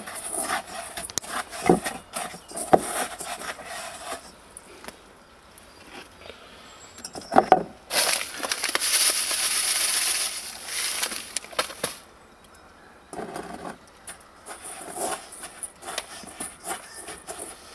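Panko breadcrumbs rustling and scraping as hands roll chicken breast in them in a stainless steel bowl, with small clicks and knocks against the bowl. About eight seconds in, a louder hissing rustle lasts some three seconds.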